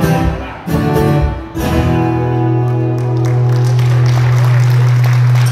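Two amplified acoustic guitars strum the closing chords of a country song: three strokes, then a final chord left ringing until it is cut off at the end. Applause starts under the held chord about midway.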